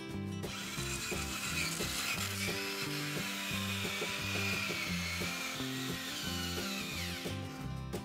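Small electric motor and gears of a radio-controlled Bruder JCB 5CX backhoe loader model whining as it drives. The whine wavers in pitch, then slides down and stops near the end, over background music.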